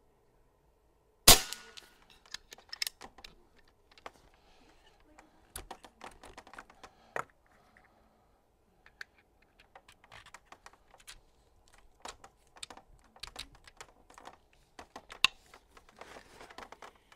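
Niksan Ozark .22-calibre pre-charged pneumatic air rifle firing a single sharp shot about a second in, followed by scattered small clicks and knocks of the rifle being handled.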